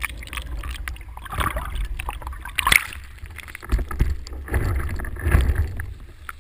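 Wind rumbling on an action camera's microphone as a windsurf board moves over choppy water, with several louder surges of water splashing and spray hitting the board and camera.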